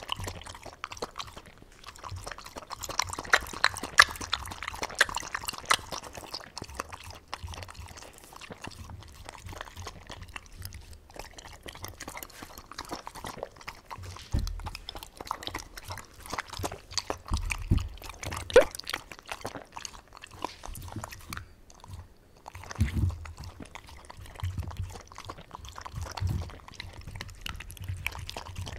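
Welsh corgi eating rice-cake and dumpling soup from a ceramic bowl close to the microphone: wet chewing, smacking and lapping, with a few low thumps against the bowl.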